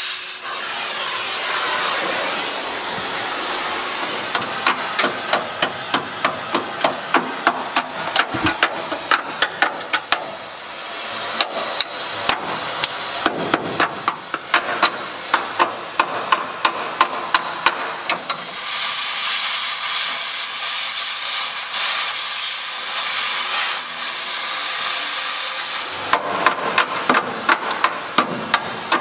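Cutting torch hissing steadily as it cuts through the steel body of a 1937 Lincoln Zephyr, with a hammer striking the hot, cut metal about twice a second. The strikes pause for several seconds while the torch hisses alone, then start again near the end.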